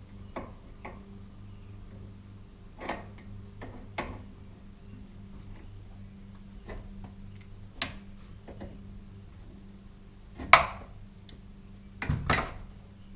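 Irregular metal clicks and knocks from steel winding bars and a wrench working at a garage door torsion spring's winding cone, with the loudest knocks near the end, over a steady low hum.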